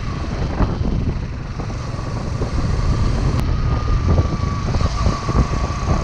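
Motorcycle on the move: engine running under a dense rush of riding noise, with a thin steady whine held through most of it.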